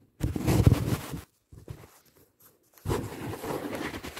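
Rustling and handling noise of the phone moving against bedding, in two spells: about a second of it just after the start, then again from about three seconds in.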